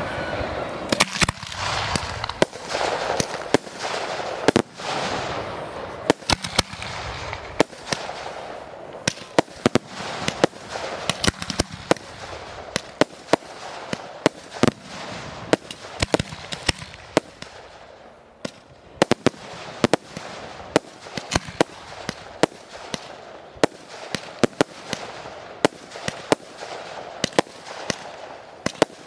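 Fireworks display: a rapid string of sharp bangs over a crackling hiss, densest and loudest in the first several seconds.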